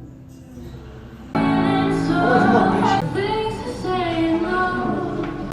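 Background music, quiet at first, that comes in much louder about a second and a half in.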